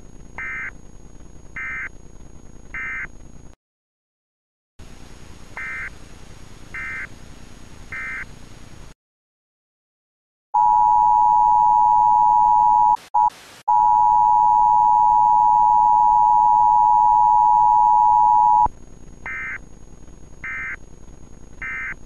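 Emergency Alert System tones: two sets of three short, high data bursts over a hiss, each set followed by a pause, then the loud, steady two-tone attention signal for about eight seconds, broken briefly near its start, then another three short bursts.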